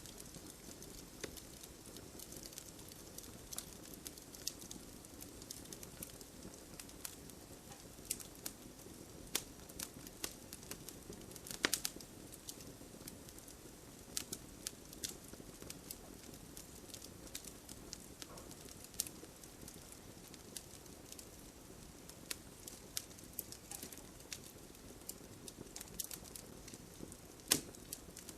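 Wood fire crackling: irregular sharp pops and snaps over a soft, steady hiss, with a few louder pops.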